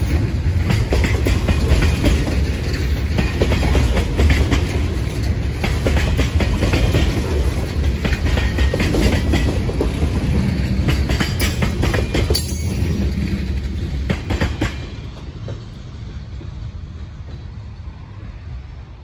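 Freight train tank cars rolling past, their steel wheels clacking over the rail joints. The rolling noise cuts off sharply about fourteen and a half seconds in, as the last car goes by, and then fades away.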